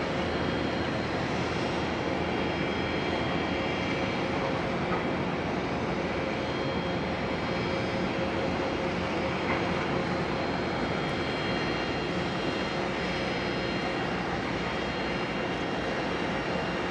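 Steady mechanical drone of a car ferry's engines and machinery, with a few faint held whining tones over an even rumble.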